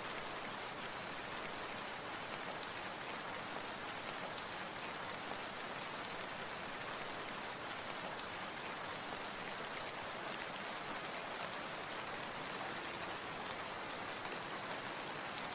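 Water making a steady, even hiss, with no breaks or single events standing out.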